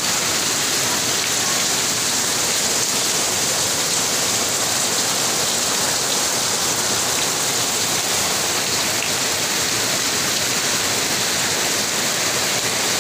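Steady, unbroken rushing hiss like heavy rain, even in level throughout.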